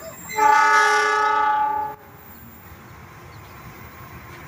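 Diesel locomotive horn giving one long blast of about one and a half seconds. The blast is a chord of several tones and cuts off sharply.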